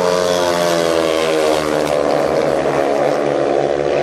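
Several speedway motorcycles racing together, their 500 cc single-cylinder methanol engines running hard through a bend. Their overlapping engine notes waver slightly in pitch.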